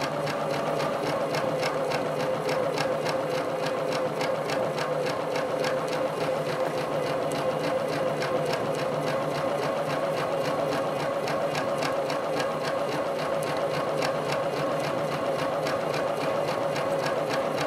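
Domestic sewing machine running steadily with a free-motion quilting foot, the needle stitching fast and evenly with a constant hum.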